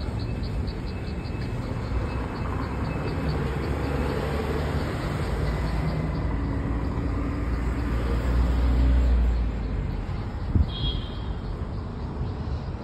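Roadside outdoor ambience: a steady low rumble of traffic that swells for a second or two past the middle, with one short sharp knock near the end.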